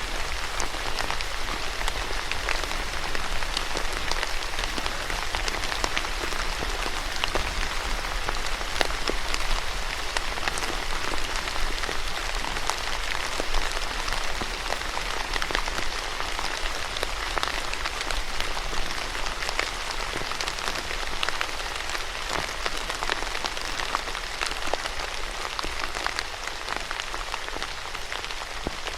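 Steady rain falling on a surface, a dense even patter with many individual drops ticking through it.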